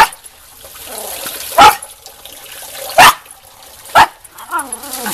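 A Schipperke barking: four single sharp barks spaced about a second apart, over a faint trickle of rainwater.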